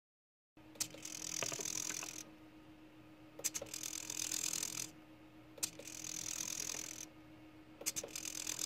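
Slow-motion servo turnout motor for an H0 model railway whirring as it throws the points back and forth, four strokes of a little over a second each, each starting with a click. A steady low hum runs underneath.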